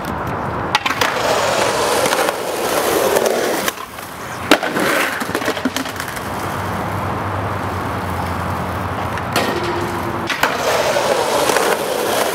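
Skateboard wheels rolling over rough concrete, with several sharp clacks of the board hitting the ground, the loudest about four and a half seconds in.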